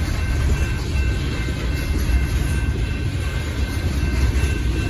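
Coal train's open-top hopper cars rolling past, a steady low rumble of steel wheels on the rails. Faint steady ringing from the grade-crossing bell sits above it.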